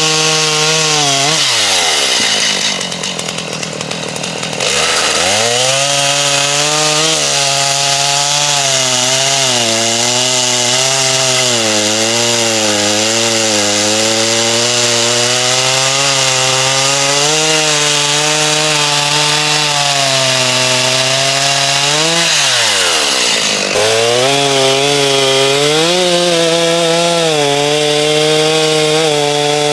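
Stihl two-stroke chainsaw cutting red oak into firewood lengths, its engine pitch wavering as the chain works through the wood. About two seconds in, the throttle drops back toward idle for a couple of seconds before revving up into the cut again, and there is a second brief drop and rev-up about 22 seconds in.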